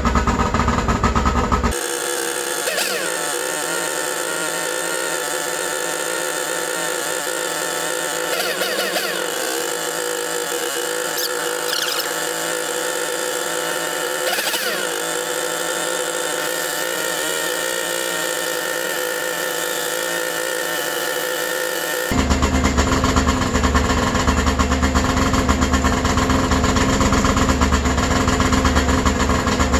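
2002 Arctic Cat ZR 600 EFI snowmobile's two-stroke twin running steadily. From about two seconds in until about 22 seconds in, the sound is thin and high with no low end, just like a little nitro RC car. Near the end it returns to a fuller, deeper engine sound.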